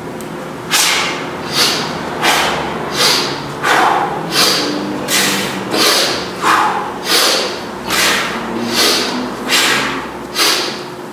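Sharp, rhythmic breaths from a man swinging a kettlebell one-handed, paced with the swings at about three breaths every two seconds.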